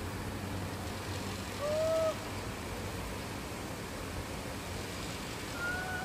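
Steady outdoor noise, with a short, slightly arching call about one and a half seconds in and a second, higher call near the end.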